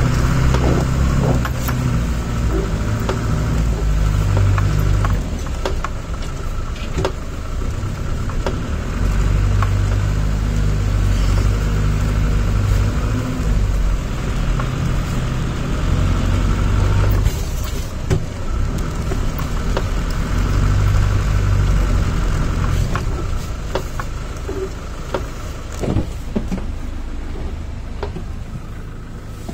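Land Rover Defender's engine running as it drives through snow, a low drone that swells and eases several times with the throttle, with scattered knocks and rattles from the vehicle. It grows quieter toward the end.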